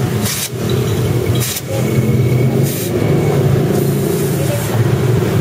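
A few short hisses of air from a motorcycle's rear tyre valve, over an engine running steadily underneath.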